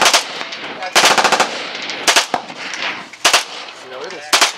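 Stechkin APS machine pistol firing 9x18mm Makarov on full auto, in five short bursts about a second apart; the longest burst comes about a second in.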